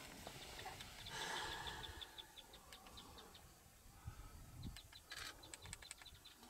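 Quiet open-air ambience with a faint, even series of short high chirps, about three a second, that grows a little louder and quicker near the end.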